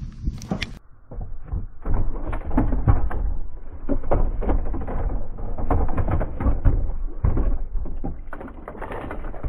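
Irregular knocks, thumps and rustling from a person moving about on a bass boat's carpeted front deck and handling the bow-mounted trolling motor and its gear. This clatter starts about two seconds in and keeps on, uneven, until near the end.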